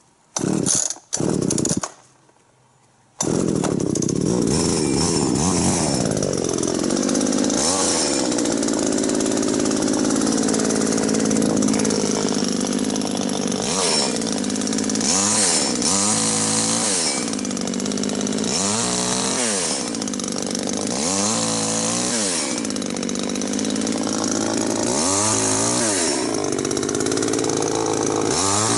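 Tanaka 32cc two-stroke chainsaw: a few short loud bursts, then the engine catches about three seconds in and runs continuously. Its engine speed keeps dipping and recovering, over and over in the later part.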